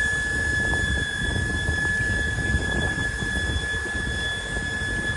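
Electro-hydraulic power trim/tilt units on a bank of large outboard engines whining steadily at one high pitch as the engines are lowered from fully tilted up down into the water.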